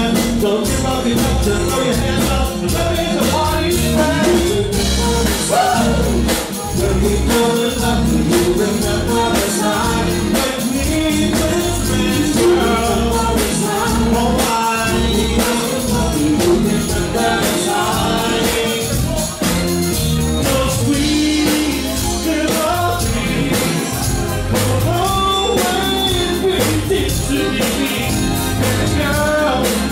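Live dance band playing an 80s freestyle song: a singer over drum kit and congas with a steady beat.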